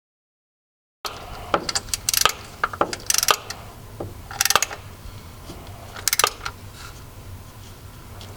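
Hand tools and metal hardware clinking and rattling as a new metal clutch slave cylinder is bolted up under a car, with several sharp, ringing metal-on-metal clinks at irregular intervals over a low steady hum.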